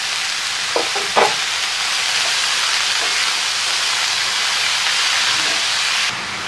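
Chopped, freshly washed amaranth leaves sizzling in hot oil in a metal kadai while a wooden spatula stirs them, with a couple of short knocks about a second in. The hiss drops suddenly near the end.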